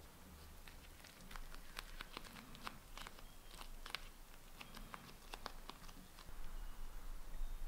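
Faint, irregular crinkles and small clicks of a damp rice paper wrapper being folded and rolled by hand around a vegetable filling to make a summer roll.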